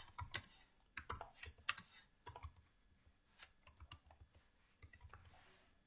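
Computer keyboard keys being typed in short, irregular runs with a pause of about a second midway, faint.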